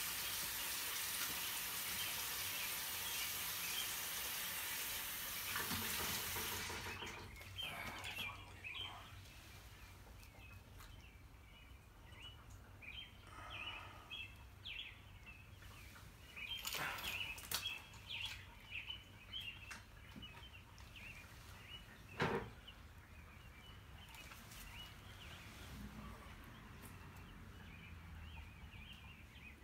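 A steady rushing hiss for about the first six seconds, then small birds chirping on and off, with a few short knocks.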